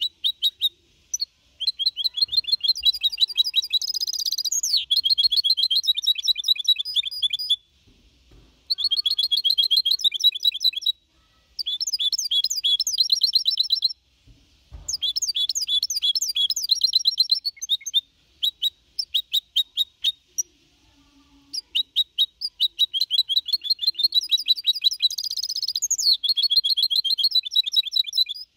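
A goldfinch hybrid (mixto) singing in the Málaga-copy style. It is a young bird of four and a half months. It gives several bouts of fast, twittering song, with short breaks between them and a longer pause a little past the middle.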